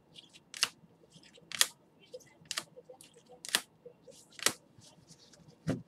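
Rigid clear plastic trading-card holders clacking against each other as the cased cards in a hand-held stack are handled one by one: a sharp click about once a second, the last one near the end a duller knock.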